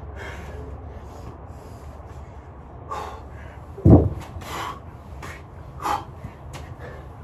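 A man breathing hard in several short, forceful breaths between sets of a workout, with one heavy thud about four seconds in.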